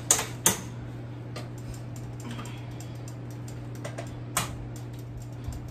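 A spoon clicking and scraping against a pan as an egg is stirred into thick churro dough, with two sharper clicks near the start and another about four seconds in. A steady low hum runs underneath.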